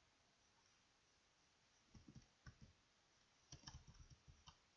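Faint clicking of a computer mouse in two short runs, a few clicks about two seconds in and a denser cluster about three and a half seconds in, over near silence.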